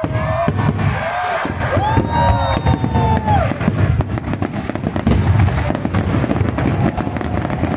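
Aerial fireworks display at full intensity: shells bursting one after another in rapid, overlapping bangs and crackling, with crowd voices underneath.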